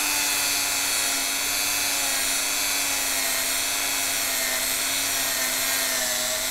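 Small handheld rotary tool running steadily with a compound-loaded cotton polishing bob held against the stainless steel edge of a Seiko 6309 watch case, buffing it towards a shine. The motor's whine sinks slightly in pitch over the few seconds.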